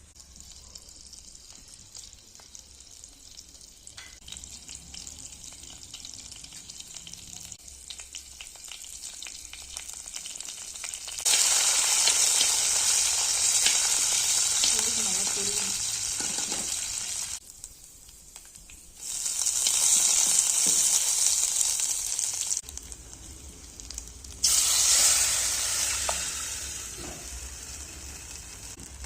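Food sizzling and frying in a hot pan: a soft sizzle that slowly builds, then about 11 seconds in a much louder, even sizzle that breaks off abruptly twice and comes back before fading away.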